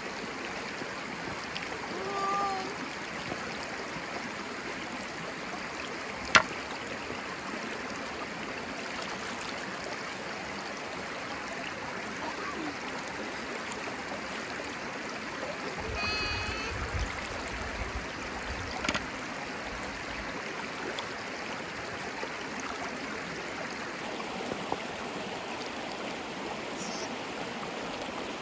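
Shallow stream rippling steadily over stones, with a single sharp knock about six seconds in and a few brief faint pitched sounds.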